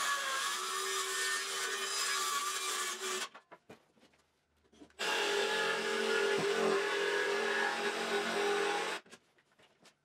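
A DeWalt cordless circular saw plunge-cutting into plywood, stopping about three seconds in. After a short pause, a DeWalt cordless jigsaw cuts the plywood for about four seconds and stops shortly before the end.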